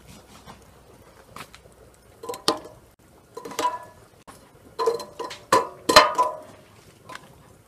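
Metal tongs dropping lumps of burning charcoal into the chimney of a charcoal samovar: a series of about six sharp metallic clinks and knocks, each with a short ring, the loudest two about a second and a half before the end.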